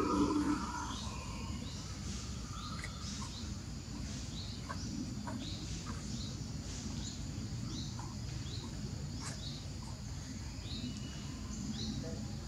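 Outdoor ambience: short, high, downward-sliding chirps repeating about once a second over a steady low rumble, with a few faint clicks. A brief louder sound comes right at the start.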